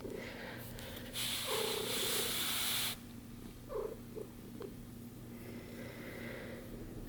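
A week-old kitten purring, with a loud burst of hissing noise lasting nearly two seconds about a second in and a few short faint sounds a little later.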